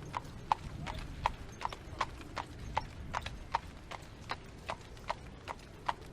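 Horse hooves clip-clopping at a steady, even pace, about two and a half to three hoof strikes a second, over a low background rumble.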